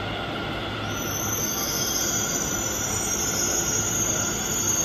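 Delhi Metro train moving along the platform with a steady low rumble, its wheels squealing in high steady tones that start about a second in.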